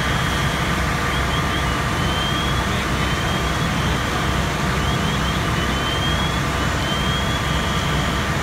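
Engines running steadily with a continuous low rumble, with short high rising chirps that come back every few seconds, sometimes in quick runs of two or three.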